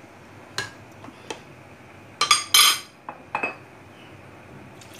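Metal spoon knocking and scraping against the side of a pot of chicken curry while stirring: a few separate clinks, the loudest cluster about two seconds in.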